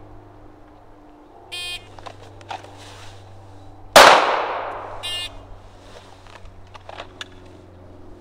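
An electronic shot timer gives a short start beep, and about two and a half seconds later a single 9mm Glock 19 pistol shot rings out with a long fading echo. A second short electronic beep follows about a second after the shot.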